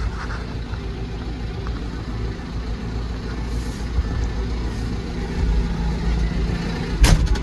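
Farm tractor's diesel engine running steadily, heard from inside the cab as the tractor moves slowly across the paddock. A quick cluster of sharp knocks near the end.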